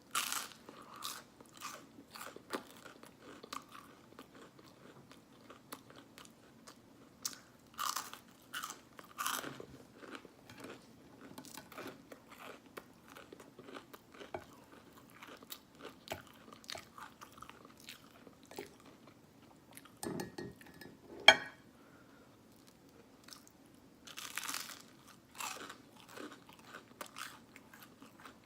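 Close-miked mouth-open chewing and biting of syrup-dipped Eggo cinnamon waffles: a steady run of short wet smacks and crunches. One sharp click about two-thirds of the way through is the loudest sound.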